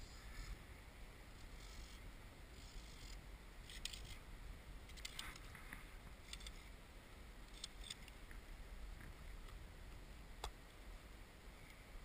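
Faint low rumble with a handful of short clicks and scratches scattered through it, from the angler's hands working the fly rod and line while playing a pike.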